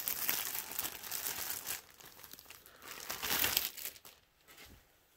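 Thin clear plastic bag crinkling and rustling as it is torn open and a folded T-shirt is pulled out of it, in two bursts of crackle that die away about four seconds in.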